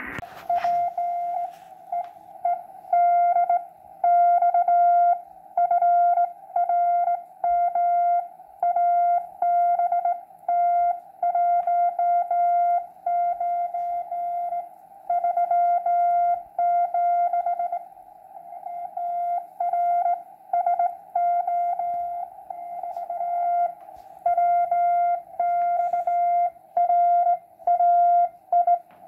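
Morse code (CW) from the Elecraft KX2 transceiver's speaker: one steady tone keyed on and off in dots and dashes, with faint band hiss between the elements. It is a signal received on the 80-metre CW band.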